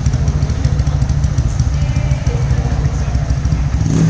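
Single-cylinder motorcycle engine idling steadily through an aftermarket stainless-steel exhaust, with a low, even pulsing beat.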